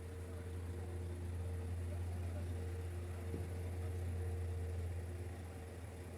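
Vehicle engine running with a steady low drone, swelling slightly in the middle.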